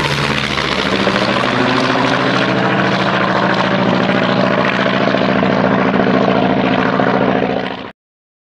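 A propeller aircraft engine running steadily at an even pitch, cutting off abruptly near the end.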